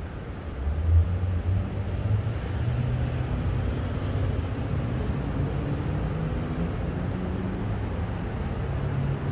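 Low, steady rumble of a subway train with a hum in it. It swells about a second in and then holds steady.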